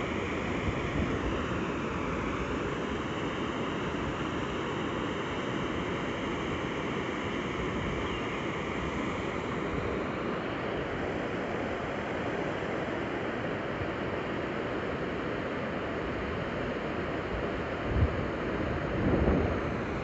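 Steady rushing of water pouring down a concrete dam spillway and churning at its foot, heavy flow. Two brief low bumps near the end.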